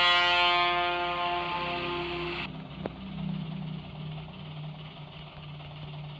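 A bus horn blares as a steady chord and cuts off suddenly about two and a half seconds in, leaving the bus engine's low idle rumble with a single sharp click a little later.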